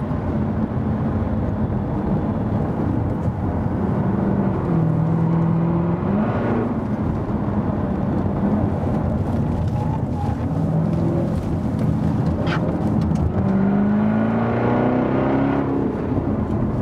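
Jaguar F-Type SVR's supercharged 5.0-litre V8 heard from inside the car while driving, its note rising and falling with the revs a few times and climbing in one long rise near the end, over steady road noise.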